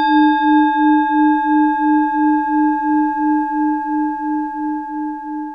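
A singing bowl struck once, ringing and slowly fading. Its low tone wavers in a pulsing beat about three times a second.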